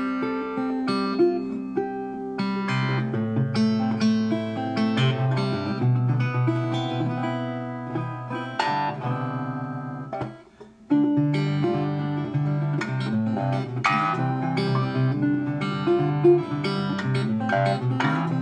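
Acoustic guitar music, plucked notes ringing over a steady bass line. It breaks off for a moment about ten seconds in, then starts again abruptly.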